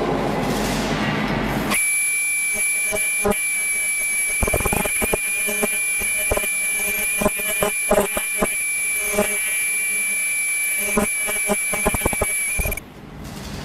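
Medical gown sewing machine running with a steady high-pitched whine that starts about two seconds in and cuts off abruptly near the end, with scattered knocks and clicks as the fabric is fed through.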